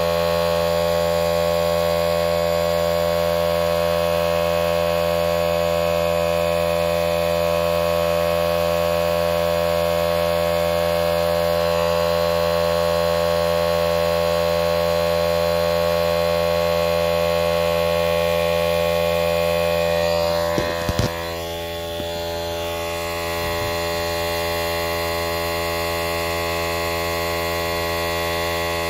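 A steady hum made of many even tones, with a couple of sharp clicks about twenty seconds in, after which it briefly dips in level.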